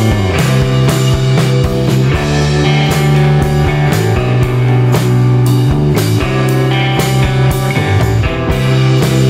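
Rock music with electric guitar and a drum kit keeping a steady beat.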